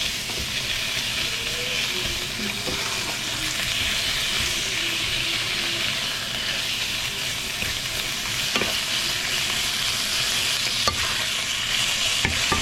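Beef and cauliflower stir-frying in a hot pan: a steady sizzle while the food is stirred, with a few sharp knocks of the utensil against the pan in the second half.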